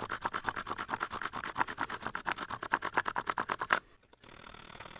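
A stone flake sawing back and forth across a wooden branch to cut it through, in quick, even rasping strokes of about eight a second. The strokes stop about four seconds in.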